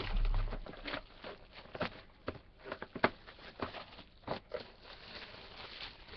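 Cardboard trading-card hobby box being handled and opened by hand: scattered light taps, scrapes and rustles of cardboard, with a few sharper clicks.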